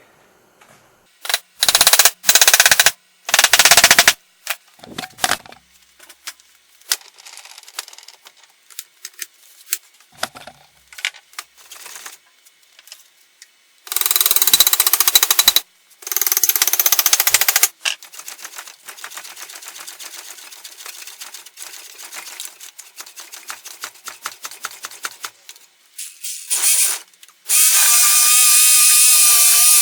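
A power tool working a small log of apple wood in short bursts of one to two seconds each: three early, two in the middle and a longer one near the end, with rapid clicking in between.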